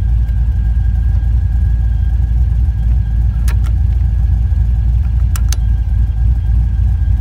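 Chevrolet Monte Carlo SS engine idling steadily, heard from inside the car, with a few sharp clicks partway through.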